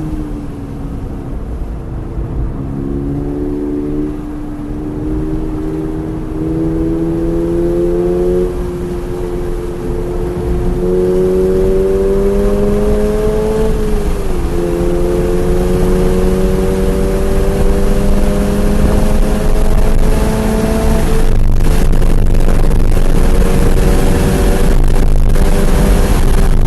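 2023 Subaru BRZ's flat-four engine pulling hard on track, heard from inside the car, its pitch climbing steadily. About 14 seconds in there is a quick upshift, where the pitch drops, then it climbs again. Loud wind noise on the microphone builds near the end and largely covers the engine.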